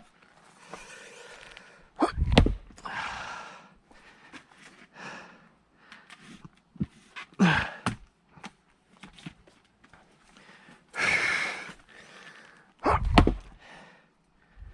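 Firewood being split by hand: two hard strikes of a splitting tool into a log, about two seconds in and near the end, with lighter knocks between. Heavy breathing of the person doing the splitting runs between the strikes.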